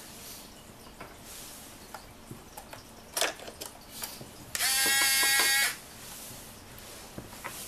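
A steady electronic buzz lasting about a second, from a 1/32-scale Aoshima RC model bus, sounding after a click as its front door is pushed shut by hand, with faint clicks of handling around it.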